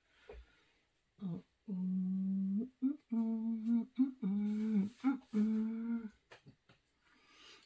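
A woman humming a short tune to herself in several held notes, with brief breaks between them.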